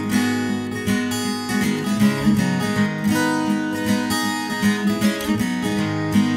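Acoustic guitar music with strummed chords in a steady rhythm.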